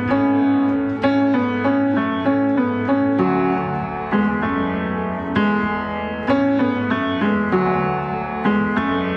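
Piano playing slow chords and single notes, each one struck and left to ring, in an instrumental passage of a gospel ballad.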